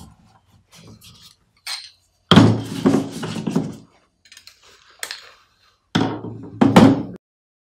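A smashed coil spring being pried and pulled out of a transfer pump's metal air cap with needle-nose pliers: metal scraping and clinking in several bursts, the longest about two seconds in and another near the end, with small clicks between.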